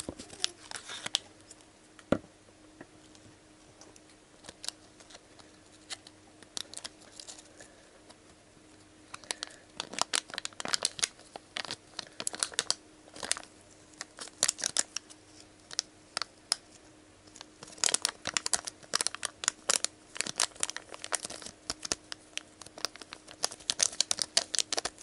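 Scissors snipping into a foil powder sachet, then the crinkly foil crackling and tearing as fingers pull it open, in dense bursts of crackle from about nine seconds in.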